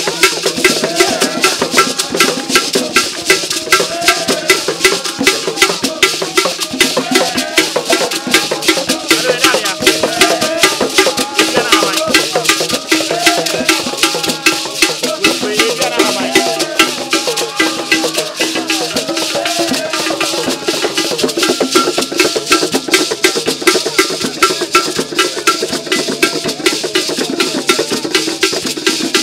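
Traditional hand drums played as an ensemble in a fast, steady rhythm, with voices singing over them.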